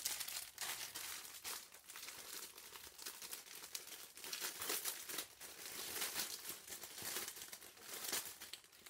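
Plastic bag crinkling as it is handled and rummaged through, an irregular crackle with no pauses, as craft feathers are picked out.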